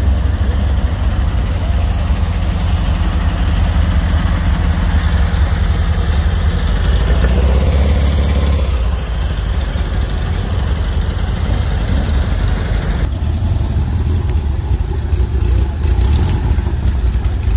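Air-cooled Volkswagen flat-four engine running at low speed as the car drives slowly past, revving up briefly about halfway through.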